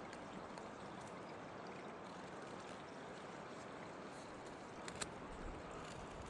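Steady rush of a flowing river, with one short, sharp click about five seconds in.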